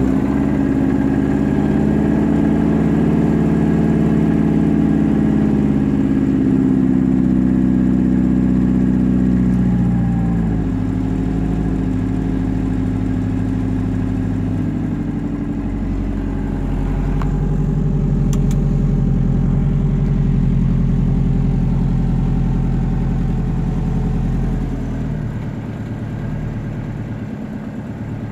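Turbocharged 16-valve Volvo redblock four-cylinder running on E85, fast-idling just after a cold start in freezing air. Its speed rises and falls, dropping about ten seconds in, picking up again, then settling to a lower, quieter idle near the end. The cold-start map is not yet tuned for this temperature.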